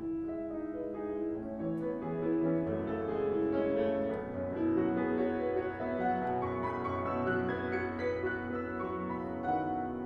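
Upright piano playing a solo piece, with held notes ringing over one another; the playing grows louder about two seconds in.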